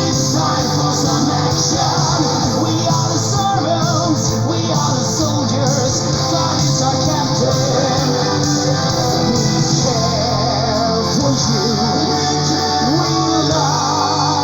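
Neoclassical melodic metal song with sung vocals over electric guitars, playing continuously at a steady, loud level.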